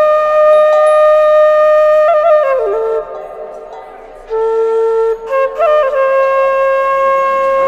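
Solo flute playing slow, long held notes decorated with quick grace notes. It drops softer for about a second, then comes back on a lower note before settling on a long held tone near the end.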